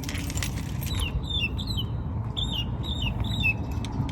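Birds chirping in many short repeated calls over a steady low rumble.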